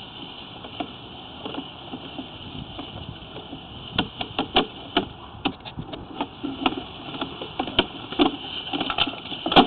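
Sewer-scope camera push cable being pulled back out of the cleanout and onto its reel: irregular clicks and knocks over a steady hiss, coming thick and fast from about halfway through.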